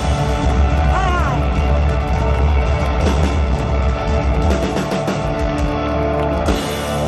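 Live rock band playing loud, with electric guitars, bass and drums, settling onto a held chord near the end.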